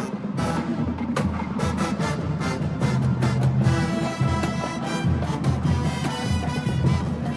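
HBCU marching band brass and drumline playing, with sustained horn chords over a steady run of drum hits.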